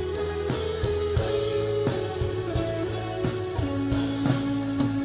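Live rock band playing an instrumental passage: drum kit keeping a steady beat under held guitar and bass notes.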